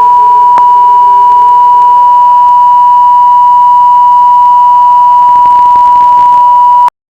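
Broadcast sign-off test tone: one steady, pure, loud beep held for about seven seconds, with a faint sliding tone fading underneath. It cuts off suddenly near the end into dead silence, as a station goes off the air.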